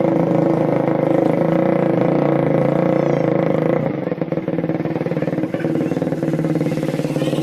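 Suzuki Raider 150 Fi's single-cylinder four-stroke engine running steadily through an aftermarket Daeng exhaust pipe, with a brief dip in level about four seconds in.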